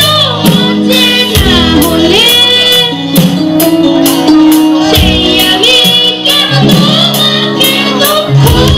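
A boy singing a song into a microphone, with long held, gliding notes, backed by a live band of electric guitar and keyboard over a steady beat.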